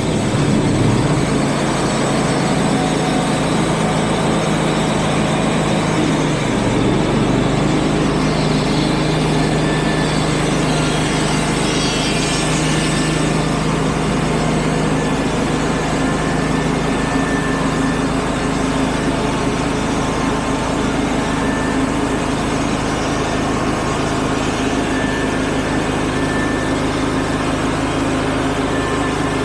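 Wood-Mizer portable band sawmill's engine running steadily, its note shifting about seven seconds in.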